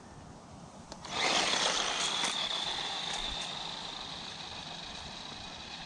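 DEERC 9300 1:18-scale RC truck's brushed electric motor and drivetrain whining as it takes off at full throttle about a second in, then holding a steady high whine that slowly fades as the truck speeds away. A few short ticks along the way.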